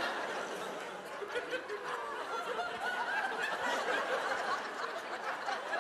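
Audience laughing, many voices chuckling together at a steady level.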